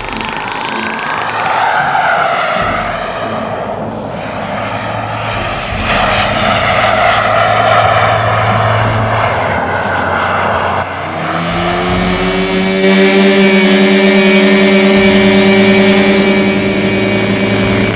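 Radio-controlled model airplanes flying, their motor whine rising and falling in pitch as they pass. About two-thirds of the way through, a louder steady engine drone joins in.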